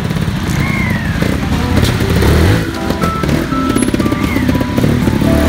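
Trials motorcycle engine revving up and down as the bike is ridden over rocks.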